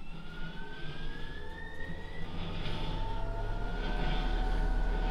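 Fisher & Paykel clothes dryer spinning up after starting, its motor whine rising in pitch over the first couple of seconds and then holding steady, with a low rumble of drum and airflow growing louder. It is running on a newly replaced main bearing and sounds a whole lot better.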